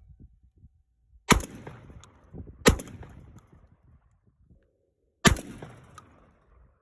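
Three shotgun shots from a Panzer Arms semi-automatic shotgun firing birdshot: two about a second and a half apart, then a third about two and a half seconds later, each with a short echoing tail.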